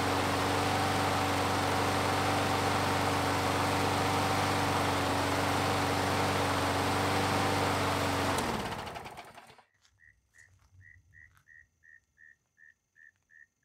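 John Deere JA62 mower's 6.5 HP Briggs & Stratton single-cylinder engine running steadily with its valve clearances freshly set. It is shut off about eight seconds in and spins down to a stop within a second. Faint high chirps then repeat about twice a second.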